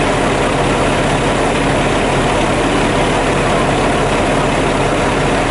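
John Deere 772CH motor grader's diesel engine idling steadily close by.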